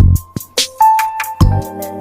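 Background music with a hip-hop drum-machine beat: kick drum, hi-hats and held synth notes.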